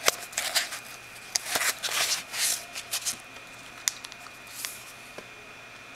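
Hands taking a wristwatch out of its packaging: quick rustles of packaging and small clicks and taps of the watch being handled, busiest in the first three seconds, then a few isolated clicks.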